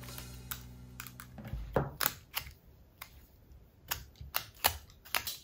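Irregular light clicks and crinkles of folded origami paper being handled while a rubber band is wound around the bundle, with a few sharper taps about two seconds in and again near the end.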